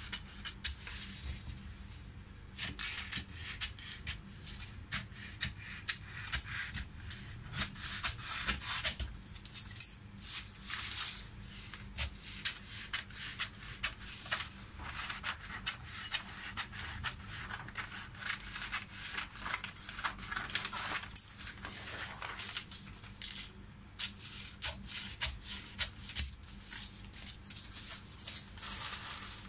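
Large tailor's shears cutting kraft pattern paper: an irregular run of crisp snips, with the paper rustling and crackling as the sheet is turned and moved.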